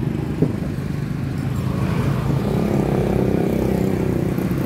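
City street traffic of motorbikes and cars, a steady engine rumble. From about two seconds in, one engine grows louder as it comes closer. A short knock about half a second in.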